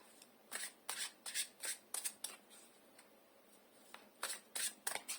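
Tarot cards being shuffled by hand: a run of short papery swishes and flicks in two spells, with a pause of about two seconds between them.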